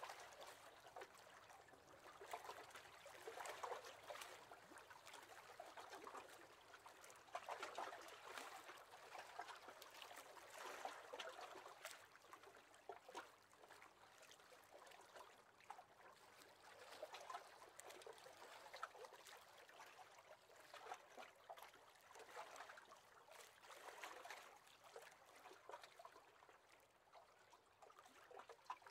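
Faint small waves lapping against the hull of a wooden rowing boat, in soft irregular swells every few seconds with little splashes.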